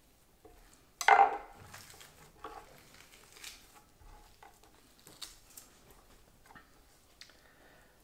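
A boning knife is set down with a sharp clatter on a wooden cutting board about a second in. It is followed by scattered quieter taps and rustles as raw venison is handled on the board.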